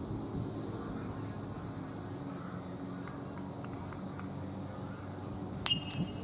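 Steady chirping of insects over a low background murmur, with one sharp click near the end followed by a brief high tone.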